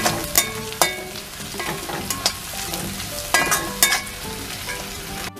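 Sliced onions, green chillies and garlic cloves sizzling in oil in a metal kadai, stirred with a metal spatula that scrapes and clinks against the pan several times, each clink briefly ringing.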